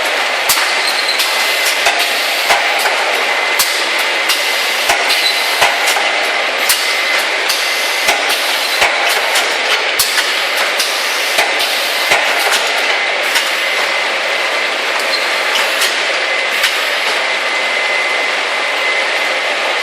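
Automatic shrink-wrap bundling machine for beverage packs running: a steady machine noise with a faint high whine, and frequent sharp clicks and knocks that thin out in the last third.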